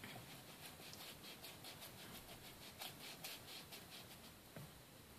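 Ink blending tool scrubbed back and forth over cardstock, a faint, even scratching of about three strokes a second.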